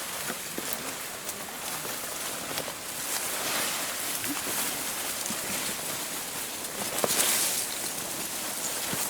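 Dense crackling and rustling of dry grass and leaves: a steady hiss of many small clicks, loudest about seven seconds in.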